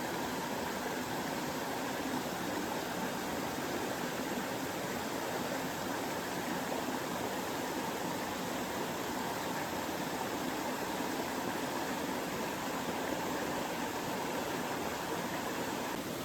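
Mountain stream rushing over rocks, a steady, unbroken water sound.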